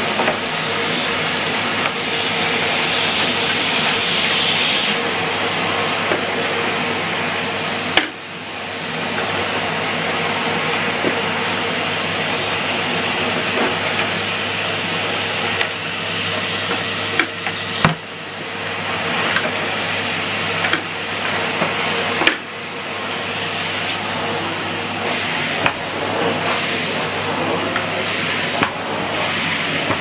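A Numatic Hetty HET160 bagged cylinder vacuum cleaner running steadily, a constant motor whine with a rushing suction hiss. A few sharp knocks come through as the machine and its hose are handled, and the sound briefly dips after some of them.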